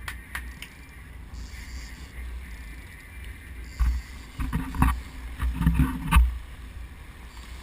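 Wind buffeting the microphone on a fishing boat, with a few sharp clicks near the start and a run of louder thumps and gusts about four to six seconds in.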